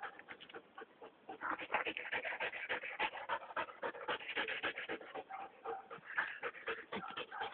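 A shepherd dog panting, many quick breaths a second.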